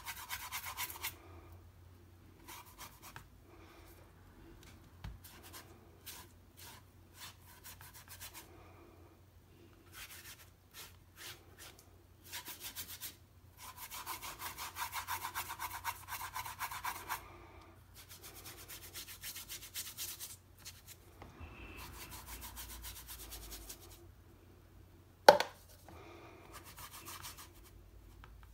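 A large watercolour brush scrubbing and sweeping paint across watercolour paper in repeated strokes, some quick and some drawn out over a few seconds. One sharp tap sounds near the end.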